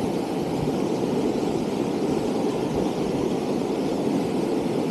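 Swollen, flood-high creek water rushing steadily past under a bridge, a continuous even rush.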